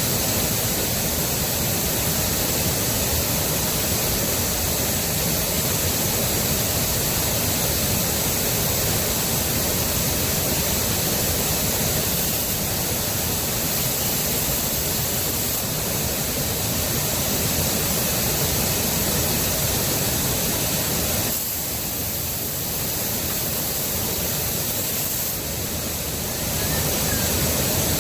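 Steady, loud rushing noise without any pitch or rhythm, dropping slightly in level twice near the end.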